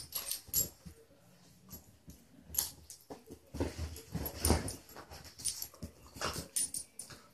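Two beagles play-fighting on a couch: an irregular run of scuffles and bumps against the cushions, mixed with short dog noises of play.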